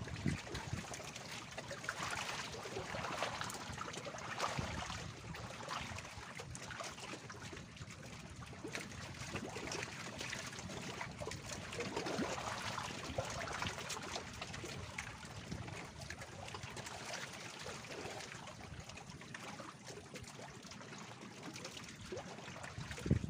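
Small waves lapping and trickling against the floats of a bamboo raft, a soft watery wash that comes and goes.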